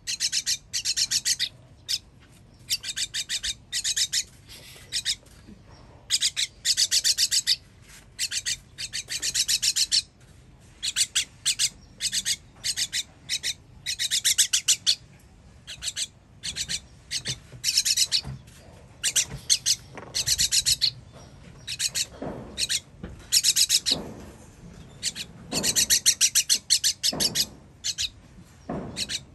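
Baby bird's begging calls while being fed: bursts of rapid, high-pitched chirps, repeated again and again with short pauses between.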